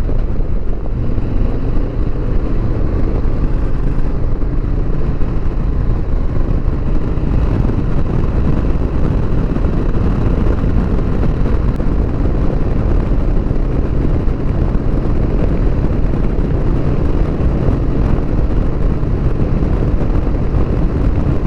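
2020 Harley-Davidson Sport Glide's Milwaukee-Eight 107 V-twin running at a steady highway cruise, heard with heavy road noise from an on-rider microphone.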